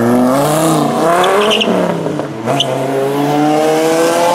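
Dodge Viper's V10 accelerating hard away, engine pitch rising, dropping at an upshift about two seconds in, then rising again in the next gear.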